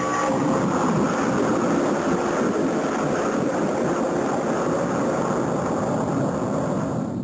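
A heavy church bell rolling and scraping over the ground, a steady rumble.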